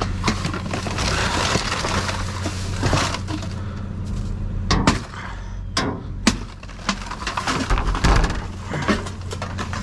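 Trash being rummaged through in a dumpster: a run of clattering and rustling, then a few sharp knocks and clanks about five to six seconds in, over a steady low hum.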